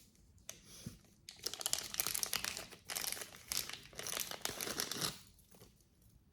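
Packaging crinkling and rustling in quick crackles as a piece of jewelry is unwrapped by hand. It starts about a second in and dies away about five seconds in.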